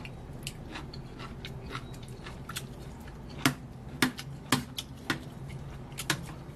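Metal spoon clinking and scraping against a ceramic plate as it stirs through saucy noodles, with a few sharp clinks in the second half, over a low steady hum.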